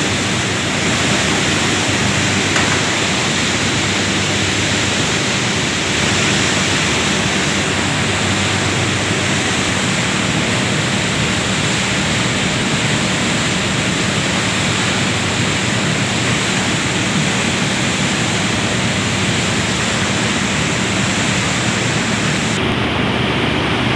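Palm oil mill processing machinery running: a loud, steady, even noise with a faint low hum underneath.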